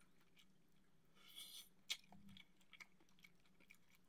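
Quiet close-up eating sounds: a person chewing seafood, with small mouth clicks and smacks, a brief crunchy rustle about a second in and a sharp click just after.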